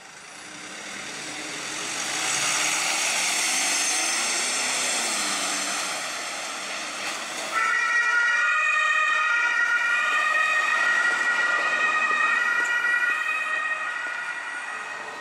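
German ambulance on an emergency run with its two-tone siren (Martinshorn) sounding, swelling and easing as it passes with road noise. About 7.5 s in, after a cut, the siren comes through loud and clear, alternating between two pitches, and fades slightly near the end.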